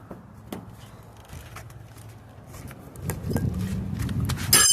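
Small clicks and knocks as a car emblem is pried off the body, ending with a loud, squeaky scrape near the end as it pulls away.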